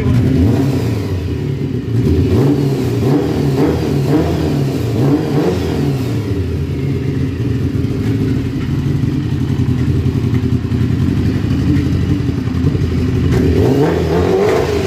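Kawasaki ZZR600's four-cylinder engine running, its revs rising and falling several times, holding steadier for a while, then climbing again near the end.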